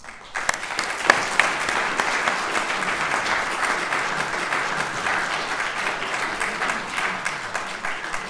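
Audience applauding: many hands clapping in a dense patter that rises about half a second in, holds steady, and begins to thin out near the end.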